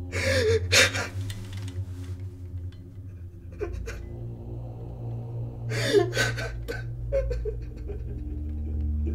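A man's heavy, shaky breathing: several sharp gasping breaths, about a third of a second in, near one second, past three and a half seconds and around six seconds, the sound of someone in distress. Underneath runs a low steady drone.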